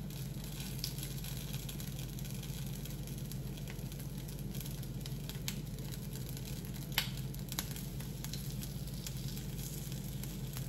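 Batter sizzling faintly in the cups of a hot, greased appam pan over a steady low hum, with a few light clicks of a spoon against the pan or batter bowl.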